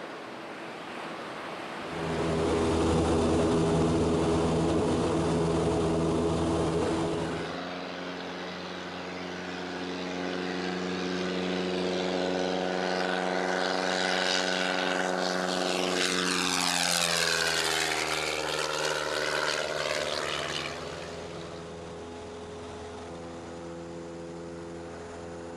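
Small single-engine Cessna propeller plane running steadily, loudest in the first quarter, then passing by with its engine pitch sliding down about two-thirds of the way through before settling at a lower level.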